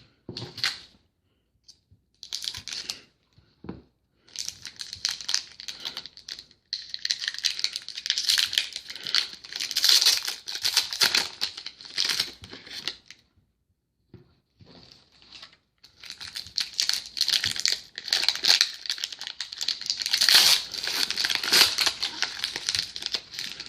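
Trading card pack wrappers being torn open and crinkled: a few short rips, then two long stretches of crackling with a short pause between them.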